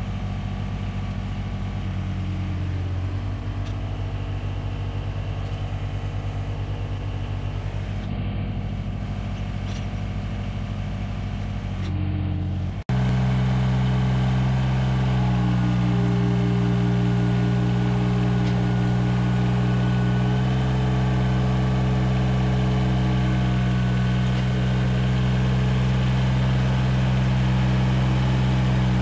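A John Deere compact tractor's diesel engine running steadily while its front loader handles a chained log. Its tone shifts slightly a few times, and after an abrupt cut about thirteen seconds in it is louder and runs at higher revs.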